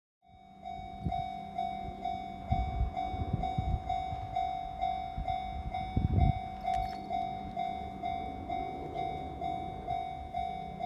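Japanese railway level-crossing alarm starting up, its electronic bell ringing a little over twice a second. Irregular low rumbles or thumps come and go beneath it, the loudest about six seconds in.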